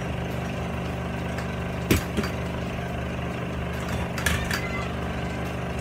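Metal frame of a Gladking telescopic makeup chair knocking and clicking as it is unfolded: one sharp knock about two seconds in and a few lighter clicks around four seconds. A steady low hum runs underneath.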